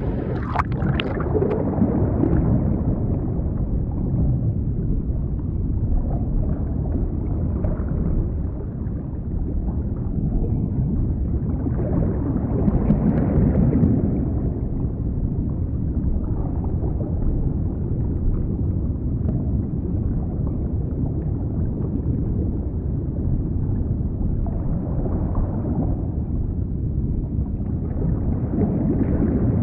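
Underwater water sound picked up by a waterproof phone's microphone: a steady, muffled rumble and gurgle of moving water that swells louder a few times.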